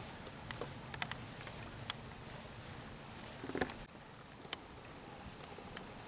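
Outdoor pasture ambience: a steady high chirring of insects, with scattered faint clicks and a brief call about three and a half seconds in.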